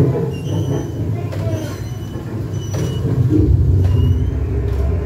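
Mack Rides dark-ride gondola rolling along its track: a steady low rumble that grows louder about three seconds in, with short high wheel squeaks and a few clacks.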